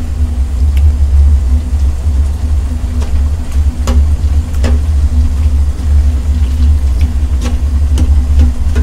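A steady low rumble runs under a handful of sharp clicks and taps, metal tongs knocking against metal cooking pots as noodles are stirred.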